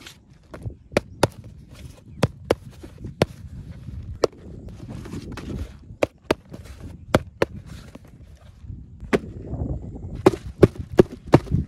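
Irregular sharp clicks and taps, about two dozen and densest near the end, over a low rumbling noise: handling sounds of small hard parts and packaging, such as a die-cast toy tractor model being unboxed and handled.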